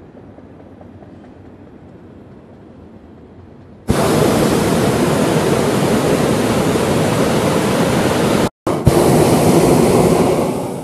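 Hot air balloon's propane burner firing: after a few seconds of faint steady background hiss, it comes on suddenly about four seconds in as a loud, steady rushing blast. It cuts out for an instant about eight and a half seconds in, fires again, and dies away at the end.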